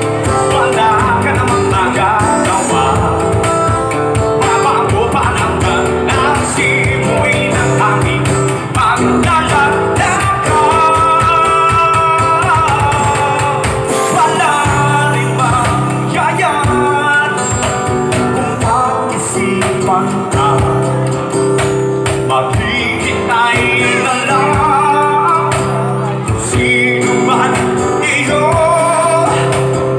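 Live acoustic band playing a song: a woman sings lead into a microphone over acoustic guitar and box-drum (cajón) percussion, heard through the stage sound system.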